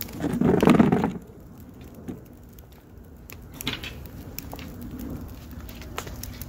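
Wood fire burning in a pit, crackling with scattered sharp snaps. There is a loud, low, rough thud-like sound about half a second in, lasting under a second.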